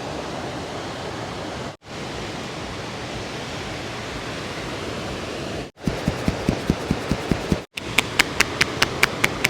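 Steady rush of the Parvati River's flowing water. About six seconds in, it breaks off into rapid, rhythmic hand strikes of a head massage, about six a second: dull thumps at first, then sharper, crisper smacks.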